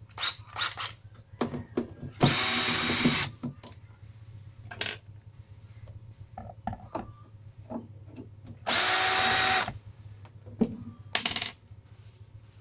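Cordless drill/driver running twice, about a second each time, with a steady motor whine, backing screws out of a CRT TV's plastic back cover. Short clicks and knocks of the driver and screws being handled come between the runs.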